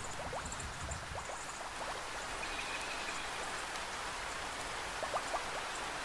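Steady heavy rain of a rainforest thunderstorm, with a low thunder rumble dying away about a second in. A few short rising chirps sound about a second in and again near the end.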